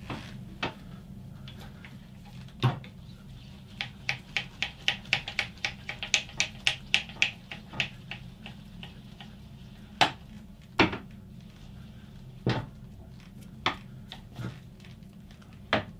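Hand crank of a 1967 WMW BT10/2 drill press being turned to lower the head down the column, the crank mechanism giving off sharp metallic clicks. The clicks come about four a second for a few seconds in the middle, with louder single clicks before and after.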